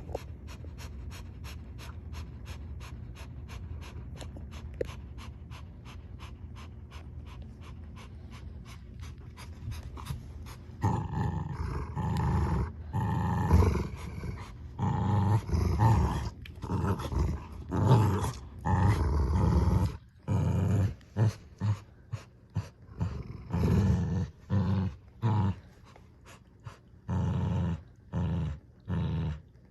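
Two dogs, a Lhasa Apso and a Bernedoodle, growling at each other in a tug of war over a toy. It is quieter for the first ten seconds or so. Then comes a long run of loud growls, each lasting about a second, with short gaps between them.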